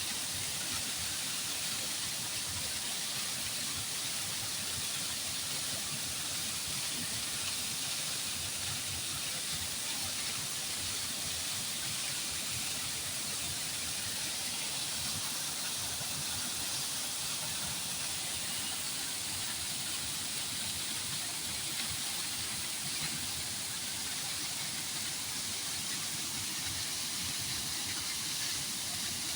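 Flowing water rushing steadily, an even hiss that doesn't change.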